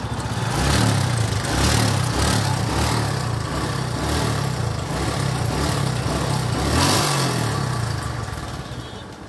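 TVS motorcycle's single-cylinder engine running just after a kick start, revved up and down a few times with the throttle, then cutting off near the end. The bike is running again after its carburetor float needle was pressed back in to stop fuel overflow.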